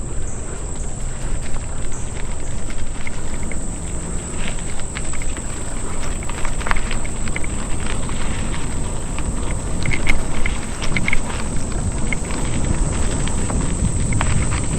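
Footsteps and the rattle and clicks of a mountain bike being pushed along a dirt trail, over a steady high buzz of insects.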